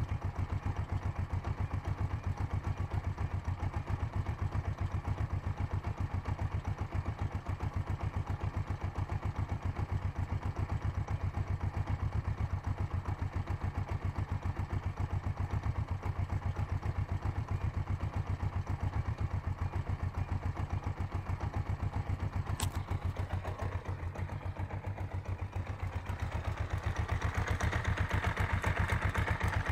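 Kawasaki GPZ500's parallel-twin engine idling, a knock in the gearbox being what the owner wants diagnosed. A single sharp click comes about three-quarters of the way through, and the engine runs louder near the end.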